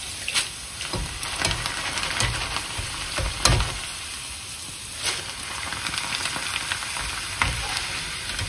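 Hot oil sizzling steadily as puris deep-fry in a pan. Now and then a utensil knocks against the pan, loudest about three and a half seconds in.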